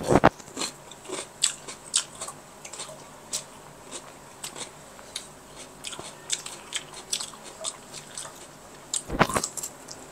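Close-up eating sounds: a person chewing and biting into bakso meatballs, with many small clicks scattered throughout and two louder knocks, one at the very start and one about nine seconds in.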